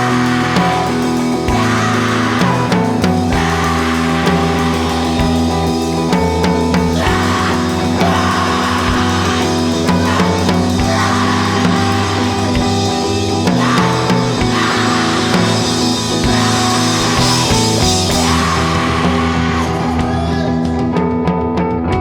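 Rock band playing: electric guitars, bass and drum kit, loud and dense. The cymbals drop away near the end.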